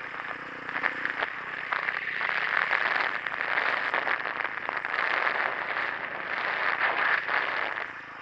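Motorcycle riding on a dirt and gravel road: a dense crackling hiss of the tyres over loose surface mixed with wind noise on the camera microphone, and the engine faint underneath. It gets quieter near the end.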